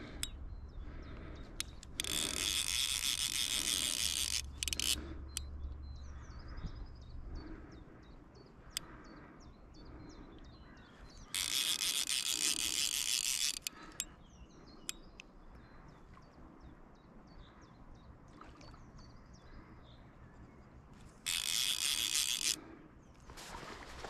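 Fly reel's click-and-pawl ratchet buzzing in three bursts of one to two seconds each, as line runs through the reel while a big rainbow trout is played. Single reel clicks and faint birdsong come between the bursts.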